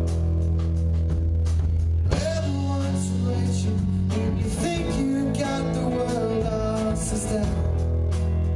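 Live rock band playing: electric guitars, bass and drum kit, with a voice singing over them from about two seconds in until near the end.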